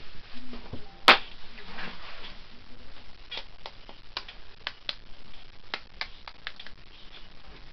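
A soft-boiled egg's shell being cracked with one sharp tap about a second in, then a string of small clicks and crackles as bits of shell are picked off by hand.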